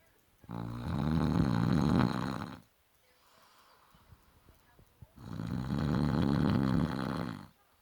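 A sleeping man snoring loudly: two long snores about four and a half seconds apart, each lasting a little over two seconds.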